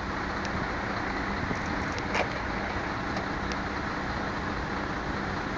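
Steady hum of distant road traffic, with a few faint clicks and a short higher sound about two seconds in.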